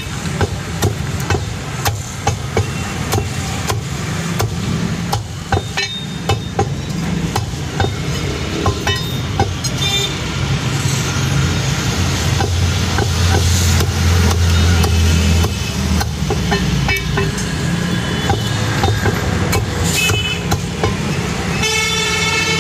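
Heavy cleaver chopping raw chicken on a wooden block: a run of sharp, irregular knocks. Behind it is steady road traffic with engines running, and a vehicle horn sounds near the end.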